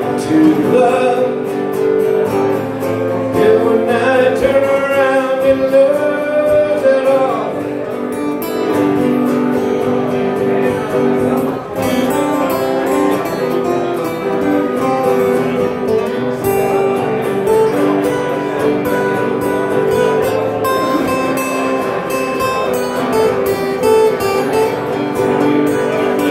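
A man singing live, accompanying himself on a strummed acoustic guitar.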